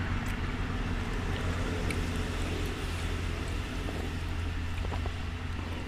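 A steady low hum over faint outdoor background noise, unchanging throughout.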